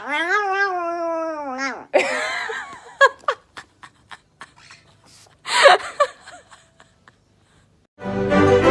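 A pet animal's vocal sounds: a long, slightly wavering cry of nearly two seconds that falls at the end, then scattered knocks and clicks, and a short loud cry about five and a half seconds in.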